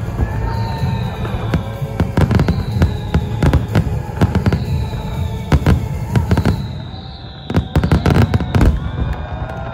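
Aerial fireworks going off in a rapid, dense barrage of shell bursts over deep booming, heaviest shortly before it stops about nine seconds in. This is typical of a show's closing finale.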